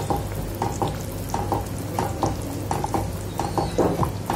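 Spatula stirring a thick, bubbling chilli chutney in a non-stick pan, about three scraping strokes a second, as cornflour slurry is stirred in to thicken it.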